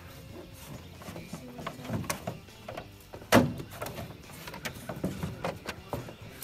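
Scattered knocks, taps and clatter against the hull of an aluminum jon boat, with one sharp, loud knock about three and a half seconds in.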